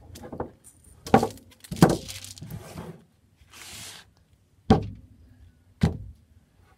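Objects being set down on a wooden table: several separate knocks and thuds, with a brief plastic-bag rustle about halfway through.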